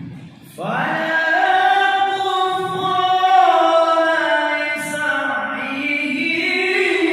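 Male qari reciting the Quran in melodic tilawah style, holding a long ornamented phrase that slides and turns in pitch. The voice comes in about half a second in, with a short break for breath near the middle.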